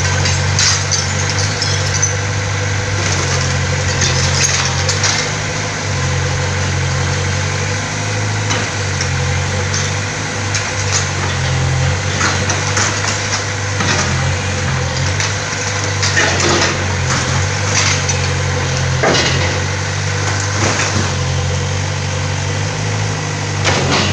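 Kobelco mini excavator's diesel engine running steadily while its bucket knocks down a brick wall, with repeated crashes and clatter of falling bricks and masonry.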